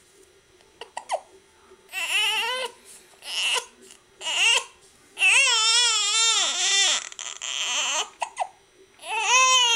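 Baby crying in a string of short wails, then one longer wail of nearly two seconds, its pitch rising and falling, and a fresh wail near the end.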